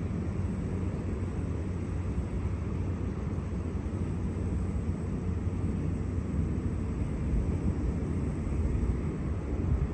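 Steady low rumble of distant city background noise, with no distinct events standing out of it.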